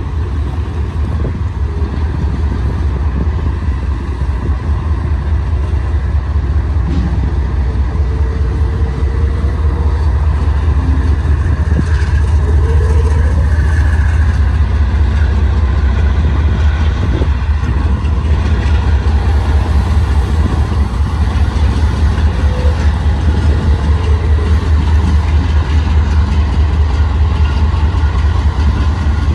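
A steady, loud, low engine rumble.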